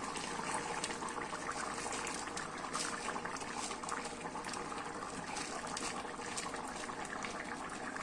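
Plov zirvak (meat-and-vegetable broth) boiling in the pot, a steady bubbling with fine crackles, as the rice goes in.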